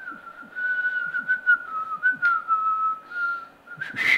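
A man whistling through pursed lips: one long, slightly wavering note that slowly sinks in pitch. It stops a little before a short, loud breathy burst near the end.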